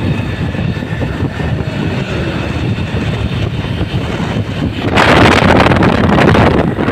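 Motorcycle riding noise: a steady engine and road rumble with wind on the microphone, the wind rush getting much louder about five seconds in.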